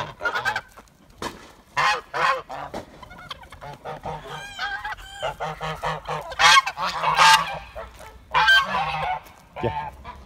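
Several white domestic geese honking loudly and repeatedly in clusters of calls, the noise of geese worked up by a person among them in their pen.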